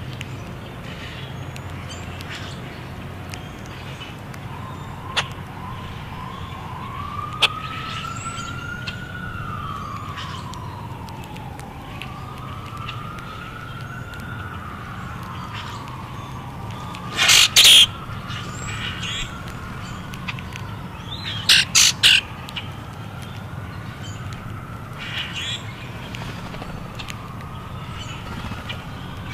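A distant siren wailing, rising and falling over a steady low background hum, while blackbirds feeding close by give harsh, squeaky calls: one about two-thirds of the way through and a quick run of three a few seconds later, the loudest sounds here.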